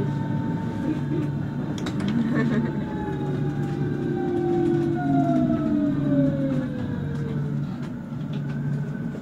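Berlin S-Bahn electric train braking into a station: the traction motor whine falls steadily in pitch and dies away as the train comes to a stop, over a low running hum.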